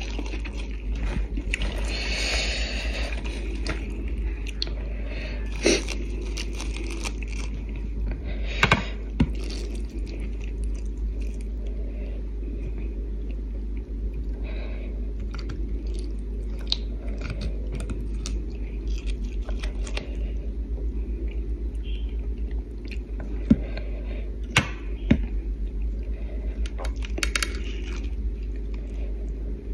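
Close-miked chewing and crisp lettuce leaves rustling and tearing in the hands, with a few sharp clicks scattered through, over a steady low hum.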